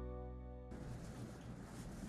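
Acoustic guitar background music ringing out on a held chord, cutting off suddenly less than a second in; after that only a faint, even hiss.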